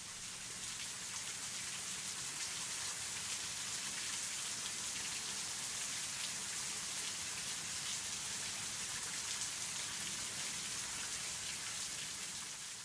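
Steady high-pitched hiss, fading in over the first second and fading out at the very end.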